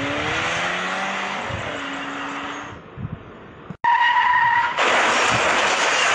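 Cartoon car sound effects: an engine revving with gliding pitch and tyres skidding. About four seconds in there is a steady beep lasting about a second, then a loud rushing noise that cuts off abruptly near the end.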